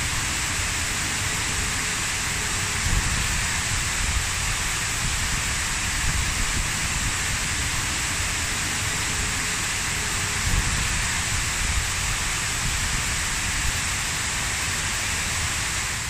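Water pouring down a tall fountain wall and splashing onto the ground below, a steady, even rush with a low rumble under it.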